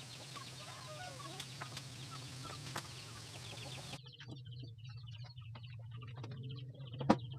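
Chickens clucking faintly in the background over a steady low hum, with a sharp click about seven seconds in.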